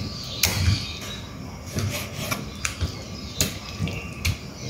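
Kitchen knife slicing raw chicken thigh on a plastic cutting board: soft cutting and scraping with about eight sharp, irregular taps of the blade on the board.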